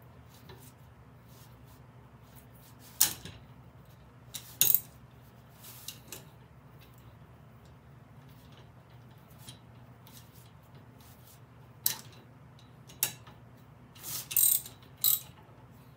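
Hand ratchet wrench clicking, with metal clinks, as bolts are run into a Snapper mower's drivetrain gear assembly. The clicks come in scattered short groups rather than a steady run, over a low steady hum.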